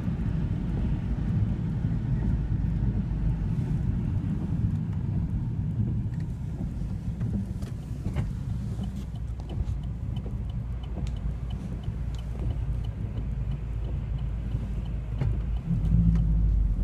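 Car cabin road noise while driving: a steady low rumble of engine and tyres. A faint, regular ticking runs for several seconds in the middle, and the rumble swells briefly near the end.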